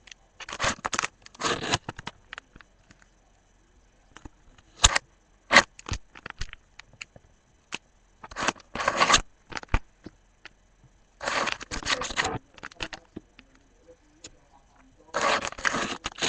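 Plastic pocket pages of a trading-card binder being handled and turned, rustling and crinkling in four bursts of about a second each, with a few sharp clicks between them.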